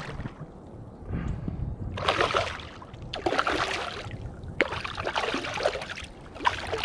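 Water splashing and sloshing against a kayak in several short bursts.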